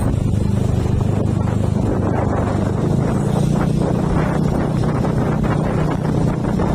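A vehicle engine running at a steady speed, with wind rushing over the microphone.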